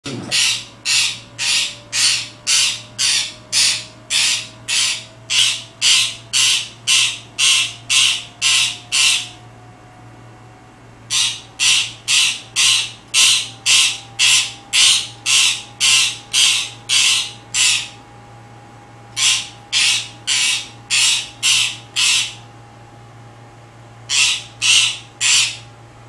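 Pet green parakeet barking like a dog in quick, evenly spaced barks, about two a second, in four runs with short pauses between them. The barking is its attention-seeking habit.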